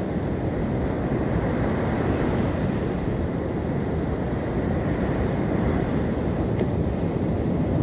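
Sea surf breaking and wind blowing across the microphone: a steady, even rushing noise with a heavy low rumble.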